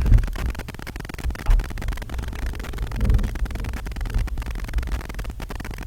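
Low, uneven rumbling and rustling of handling noise on the recording device's microphone, with a few faint clicks.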